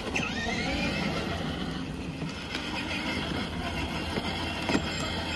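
Kids' electric ride-on motorcycle driving along a concrete sidewalk: its small electric motor running and its hard plastic wheels rolling over the rough concrete in a steady rumble.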